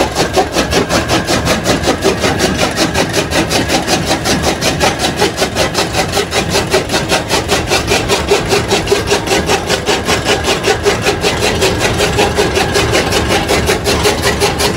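Belt-driven chaff cutter chopping fresh green fodder as grass is fed into it, the flywheel blades slicing in a fast, even chopping rhythm of about five cuts a second over the running machine.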